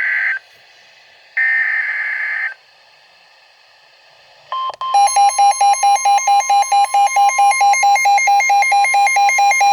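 NOAA Weather Radio Emergency Alert System alert: two loud, rasping digital header bursts about a second apart, then the steady 1050 Hz warning tone sounds with a pulsing alarm beep, about five beeps a second, over it. Both stop suddenly at the end, signalling that a warning is being issued.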